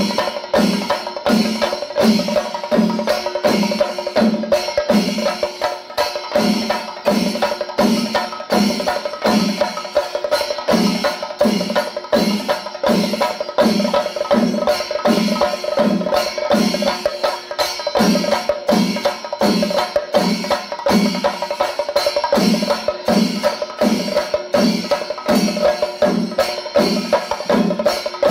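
Chenda melam: a massed ensemble of chenda drums beaten with sticks in a steady rhythm of about two strokes a second, with elathalam hand cymbals ringing on continuously over the drums.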